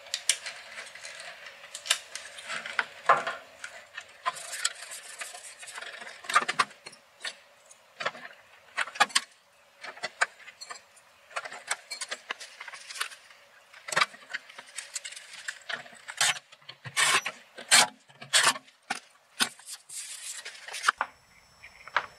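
Clicks, taps and rubbing of the JET air filtration unit's plastic control panel and its wiring being pushed back into the sheet-metal cabinet by hand: an irregular string of short sharp knocks and scrapes, with no steady rhythm.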